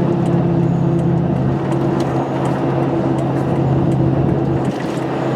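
2004 Ford F-150's 5.4 Triton V8 engine labouring up a hill at a steady, even drone, down on power. The truck runs rough and has no power, a fault diagnosed as a failing variable valve (cam phaser) solenoid.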